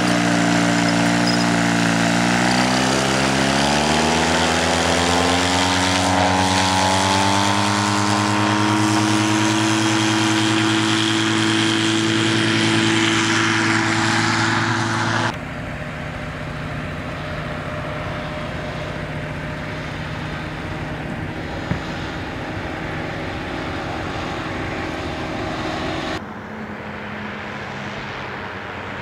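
Ultralight trike's twin-cylinder two-stroke engine and pusher propeller. The engine climbs in pitch over the first several seconds as it is throttled up, then holds steady at high power. About halfway through it cuts abruptly to a quieter, farther-off engine drone, with another cut near the end.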